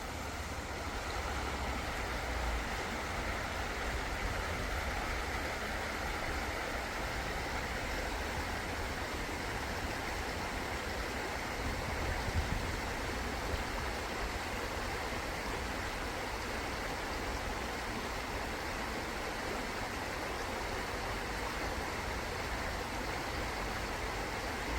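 River water flowing steadily, an even rushing with a low rumble underneath.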